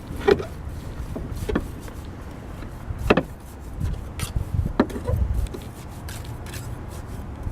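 Irregular sharp knocks and clacks of roofing work, four or five hard strikes a second or so apart, over a steady low rumble.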